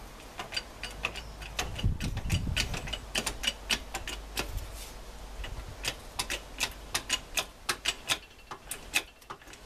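A ratchet clicking in a steady run of sharp clicks, about three a second, as the workshop press is worked, with a low rumble about two seconds in.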